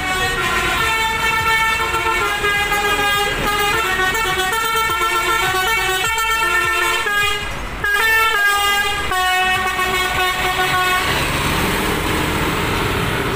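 Basuri multi-tone telolet horn on an STJ Draka coach playing a tune, its notes stepping up and down. About eleven seconds in it stops, leaving the coach's engine and road noise.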